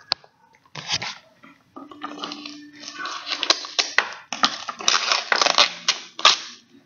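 Paper wrapping being torn and crumpled off a small surprise box by hand, in irregular crackling bursts that come thickest in the second half.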